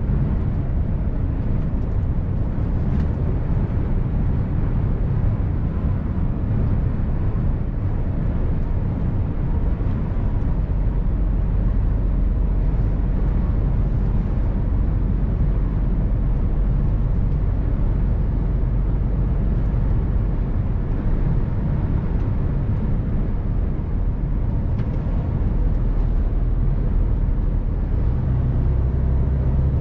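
Mercedes-Benz Actros 1851 truck's straight-six diesel running, a steady low drone of engine and driving noise. Near the end a steadier, deeper engine note comes in.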